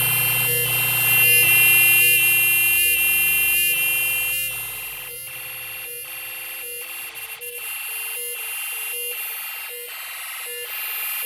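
Snap Circuits fire alarm's electronic sounder going off during a continuity test of the home-built system, a steady electronic tone chopped into pulses about twice a second. A lower hum underneath fades out about three seconds in.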